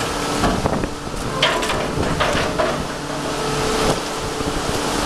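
Crab boat's engine running steadily under wind noise on the microphone, with scattered knocks and clatter as king crabs are sorted on an aluminium sorting table. The knocks come thickest a second or two in.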